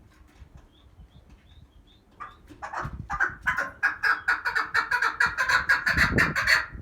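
Female chukar partridge calling: a rapid run of repeated clucking calls, about five a second, starting about three seconds in after a few faint high chirps. It is the hen's call that draws male partridges to her.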